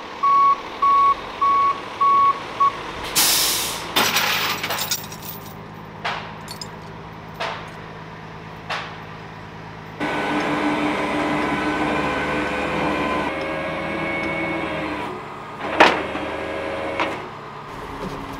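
Flatbed tow truck's reversing beeper, a steady tone beeping about every half second, stops about three seconds in. A short loud air-brake hiss and a few clanks follow. From about halfway a steady truck engine hum with a whine runs for several seconds, and there is a loud clank near the end.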